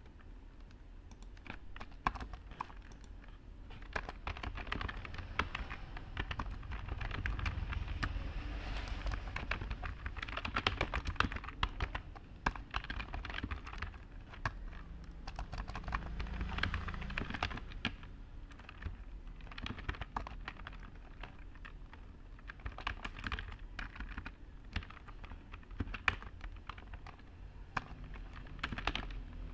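Typing on a computer keyboard: an irregular run of keystroke clicks with short pauses, over a steady low background rumble.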